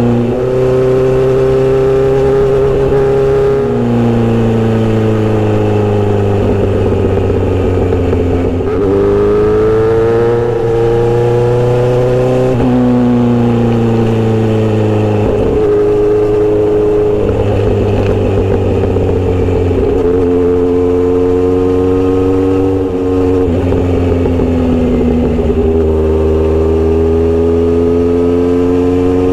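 Kawasaki Z900RS inline-four running through a Misty Kintaro short steel exhaust under way. Engine pitch climbs and falls with the throttle, with about seven sudden drops at gear changes.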